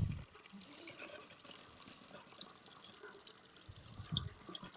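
Faint sloshing and dripping of water as detergent powder is stirred into it by hand to work up a lather, with a soft low thump at the start and a few more near the end.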